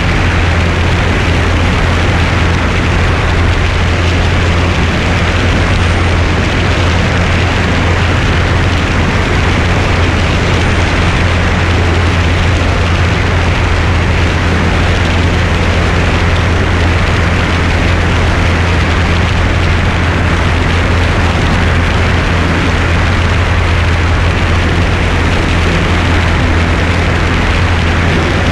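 Single-engine light airplane's piston engine and propeller running at full power through the takeoff and climb, a steady loud drone with a constant low hum, mixed with heavy wind rush on a wing-mounted microphone.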